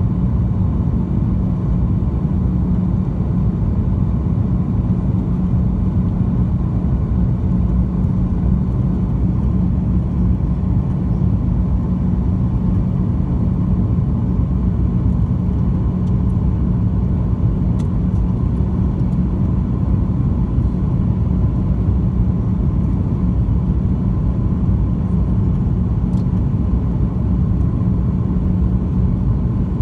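Cabin noise of a Boeing 737-900 descending on final approach: a steady rumble of airflow and its CFM56-7B turbofan engines, with a constant low hum and a fainter higher hum on top.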